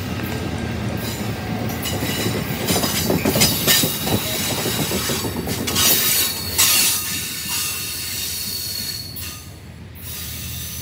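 Amtrak passenger cars rolling past at speed, steel wheels rumbling on the rails with a high squeal from the wheels. The noise drops away about nine seconds in as the last car goes by.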